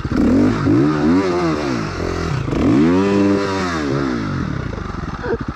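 Dirt bike engine revved hard twice, its pitch climbing and falling each time, then settling back to a steadier run near the end.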